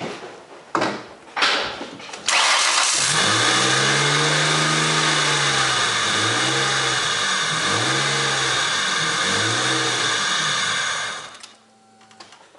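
1998 Ford Contour SVT engine starting about two seconds in, its pitch rising and falling four times as it is revved, then cutting off near the end. The grinding noise that runs with it is blamed by the owner on a failing idler pulley. Two sharp knocks come before the start.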